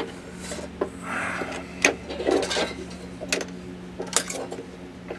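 Steel fish wire being twisted and unwound from a hitch bolt: scraping rubs and several sharp metallic clicks, over a steady low hum.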